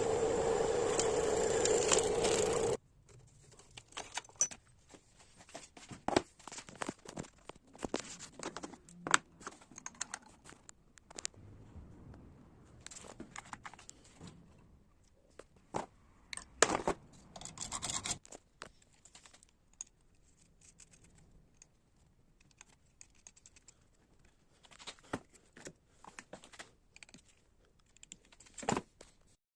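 A steady, loud noise with a hum cuts off suddenly about three seconds in. After that come scattered clicks, taps and short scrapes of small hard parts, typical of hand work on a PVC window latch mechanism.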